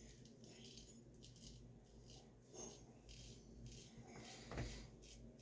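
Razor scraping through lathered stubble in a series of short, faint strokes, with one sharper click about four and a half seconds in. The shave is going smoothly, with no tugging or pulling.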